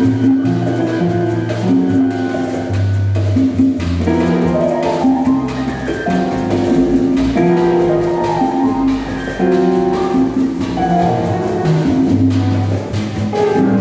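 A live salsa band playing: piano over a bass line of long low notes, with percussion striking throughout.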